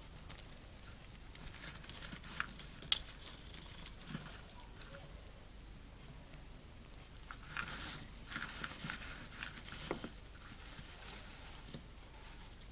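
Gerbil rustling and burrowing in shredded paper bedding: faint, irregular crinkling with small clicks, busiest from about eight to ten seconds in.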